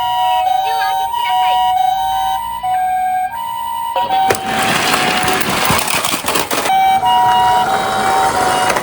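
Japanese ambulance siren giving its two-tone "pee-po" call, a higher and a lower tone taking turns about every half second. From about four seconds in, a loud clattering rattle of small hard objects sounds over it for a few seconds.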